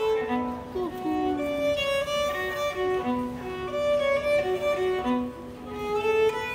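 Background music: a violin melody of long held notes, with a few slides between them.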